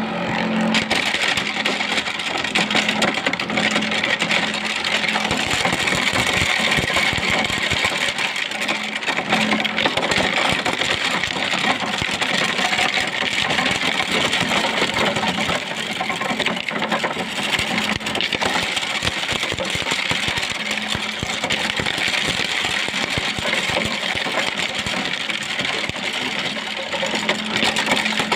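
Engine-driven corn sheller running steadily: a small motor's hum under a dense, continuous rattle of kernels being stripped from the cobs.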